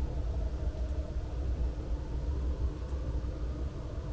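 Steady low rumble of street traffic, with a faint engine hum over it.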